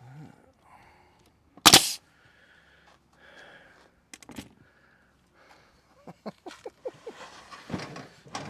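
A pneumatic nail gun fires once, a sharp shot about two seconds in, driving a nail into a wooden hive box. Lighter knocks and taps of wood being handled follow.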